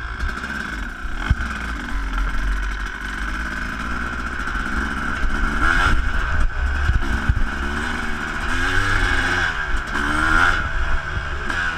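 Suzuki RM250 two-stroke single-cylinder dirt bike engine under way, its pitch rising and falling with the throttle, climbing hard through the revs about halfway and again near the end. Occasional knocks from the bike riding over bumps.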